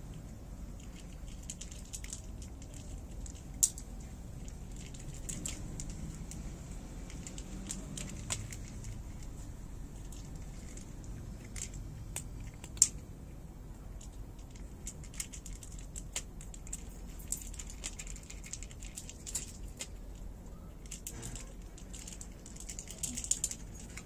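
Scattered small clicks and crackles, a few sharper than the rest, over a steady low background hum.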